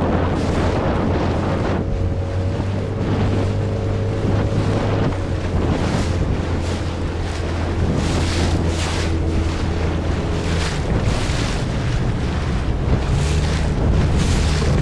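Steady hum of a motorboat engine, with wind buffeting the microphone and water splashing and rushing past the hull.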